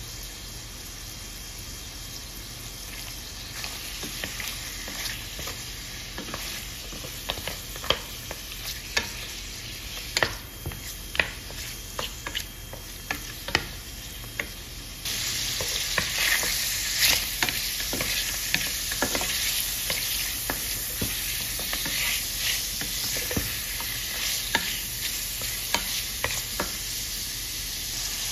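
Lamb pieces sizzling in melted butter in a stainless steel pan, with many sharp clicks as the pieces are stirred with a spatula. The sizzle gets suddenly louder about halfway through.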